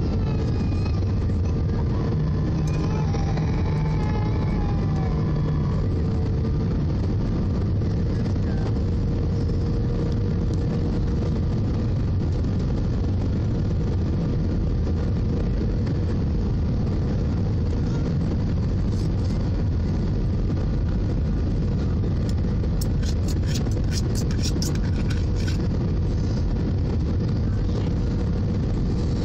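Steady cabin noise of an Airbus A319-111 on approach, heard from a window seat over the wing: its CFM56 turbofan engines and the rush of air make a constant low rumble with a steady hum. A quick run of faint clicks comes about three-quarters of the way through.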